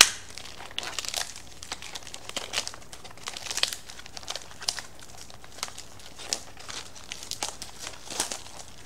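Parcel packaging being handled and unwrapped by hand: irregular crinkling and rustling, with a sharp click right at the start.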